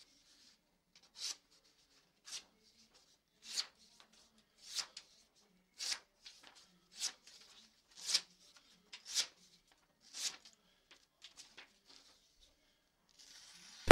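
Freshly sharpened handmade bushcraft knife slicing through a hanging sheet of paper to test its edge: about nine short, quiet slicing strokes, roughly one a second.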